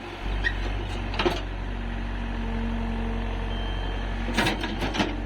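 A heavy engine running steadily at low speed, with a few sharp knocks and clicks over it.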